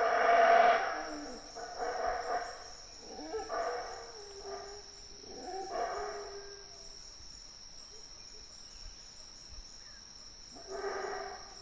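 Howler monkeys howling at dawn: bouts of deep, rising-and-falling calls, the loudest in the first second, more about every one to two seconds, then a lull before another bout near the end.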